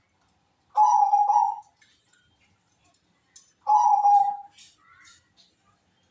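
Zebra dove (perkutut) with a Bangkok-type voice cooing: two short coo phrases, the first about a second in and the second about three seconds later.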